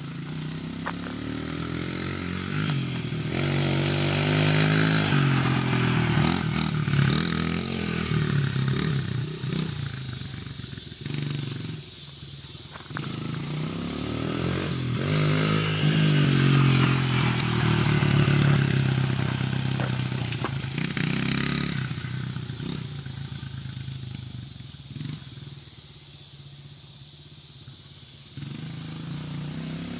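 Small dirt bike engine revving up and down as it is ridden around the yard. It gets loud as the bike comes near, about five seconds in and again around seventeen seconds, and fades while it is farther off near the end.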